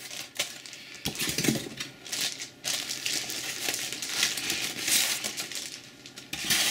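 Plastic bag crinkling and white foam packing inserts rubbing and knocking as they are handled and fitted into a cardboard box, in irregular rustles and small clicks.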